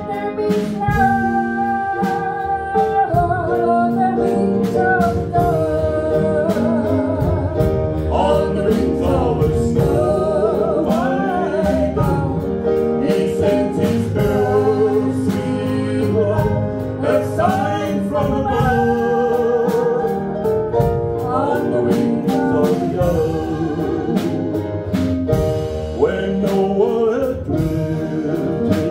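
A woman and a man sing a gospel song into microphones, with vibrato on held notes. An electronic keyboard accompanies them with sustained chords and a steady beat.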